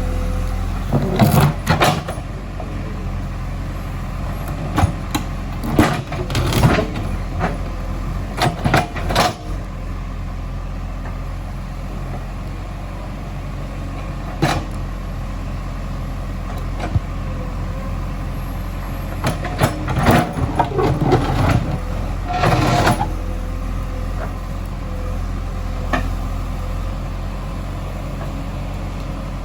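JCB 3DX backhoe loader's diesel engine running steadily, with bursts of short knocks and clanks from the machine at work, heaviest in clusters about a second in, around six to nine seconds in, and around twenty to twenty-three seconds in.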